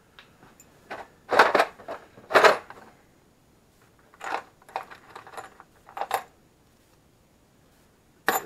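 Steel bolts and washers clinking and rattling as they are picked out of plastic parts bins, in several short bursts of clatter. The loudest bursts come about a second and a half and two and a half seconds in.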